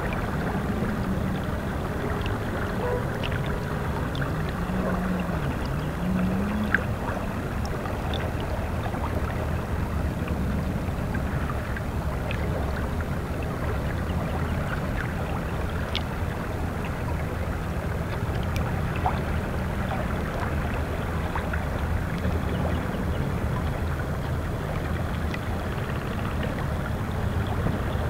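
River water lapping and gurgling against shoreline rocks, a steady wash with small splashes now and then.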